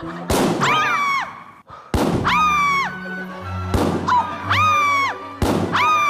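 Balloon bursting with a sharp bang, repeated four times about every second and a half to two seconds, each bang followed by a comic sound effect: a pitched tone that rises, holds, then slides down.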